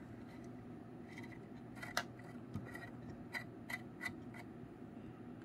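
Small metallic clicks and ticks from fingers threading a coaxial connector of a SAW bandpass filter onto a Heltec miner's antenna port. There are about half a dozen scattered clicks, the sharpest about two seconds in, over a faint low hum.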